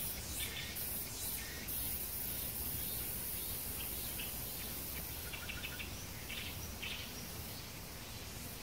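Summer outdoor ambience: a high insect buzz, steady from about two seconds in until about five seconds, with short bird chirps in small clusters, busiest about five to seven seconds in.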